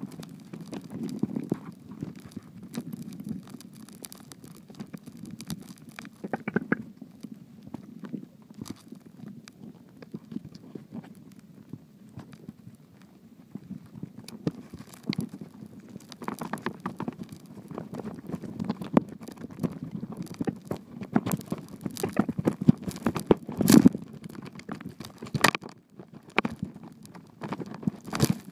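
Muffled underwater noise picked up by a submerged camera in a river: a low rumble of moving water with irregular clicks and knocks. The knocks come more often in the second half, the loudest near the end.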